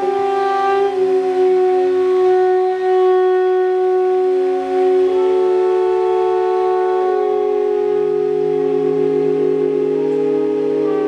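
Several sustained instrument tones held together as a slowly shifting chord, the installation's instruments sounding in response to coloured squares. A higher tone enters about five seconds in and a low tone joins about two seconds later.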